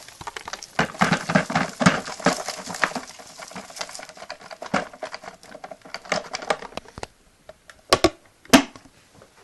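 Plastic dust container of a hoover being handled and emptied: a quick run of clicks, rattles and knocks as the debris is shaken out, then two sharp clicks near the end.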